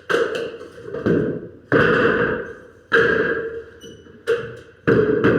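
Hammer blows on wood in carpentry work: a series of sharp strikes, roughly one a second, each ringing briefly as it dies away.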